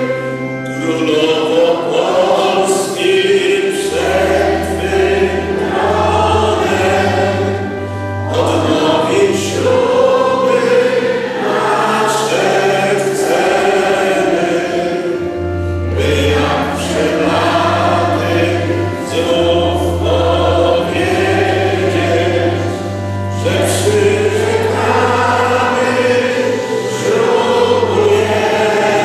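A church congregation singing a hymn together, in slow phrases over steady low held notes.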